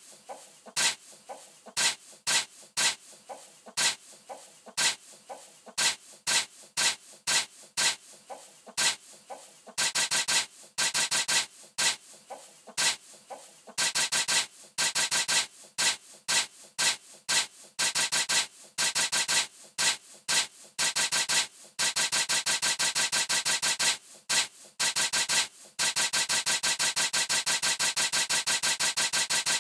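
A sheep sneezing again and again in short, sharp snorts set to a rhythm: at first a loose beat of one or two sneezes a second, growing denser, then a fast, even run of sneezes through the last third.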